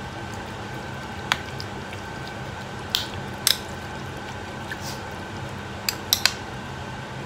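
Metal spoon mashing soft canned fish in tomato sauce against a ceramic bowl, with a few sharp clinks of spoon on bowl, the loudest about three and six seconds in. A steady low hum runs underneath.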